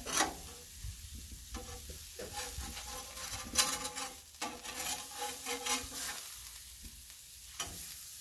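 Seafood and tomato sauce sizzling on a hot steel flat-top griddle, with a metal spatula scraping and clicking across the griddle surface as tortilla pizza crusts are slid and checked. The sharpest scrapes come about a second in and around three and a half seconds in.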